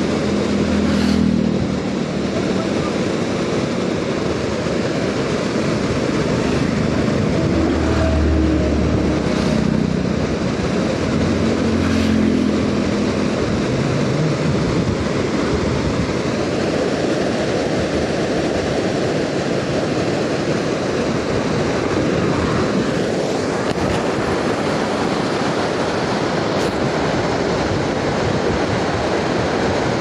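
Floodwater rushing and churning over a concrete river weir, a steady continuous noise of fast-moving water.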